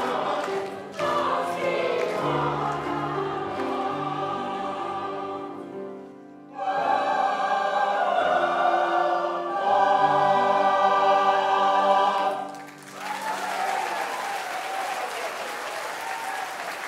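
Mixed Armenian church choir singing with piano accompaniment; after a short break about six seconds in, the singing comes back louder and ends about thirteen seconds in. Audience applause follows.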